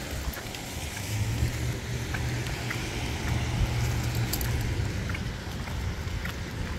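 A car passing on the wet road, its low engine hum and tyre hiss swelling over a few seconds and easing off near the end, with a few light metallic clinks.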